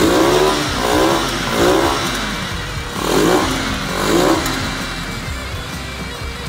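Cleveland CycleWerks Misfit motorcycle's stock exhaust as the throttle is blipped about five times, the engine note rising and falling with each rev. It settles back toward idle for the last couple of seconds.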